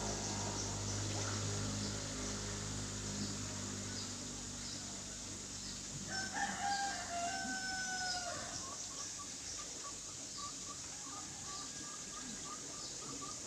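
A rooster crows once, about six seconds in: one drawn-out call lasting about two seconds that drops in pitch at the end. A steady low hum runs under the first half, and a quick run of short repeated high notes follows the crow.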